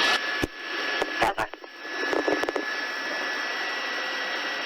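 Police radio channel between transmissions: a few sharp clicks as a transmission ends, then steady radio hiss with a thin high tone running through it.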